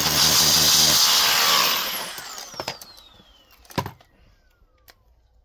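Cordless drill running hard through a bit, then let off about a second and a half in and spinning down with a long falling whine. A couple of sharp knocks come in the middle.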